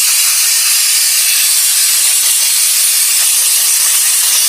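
A long, loud, steady hiss of a pressurized jet blasting sawdust and grime out of a chainsaw's housing.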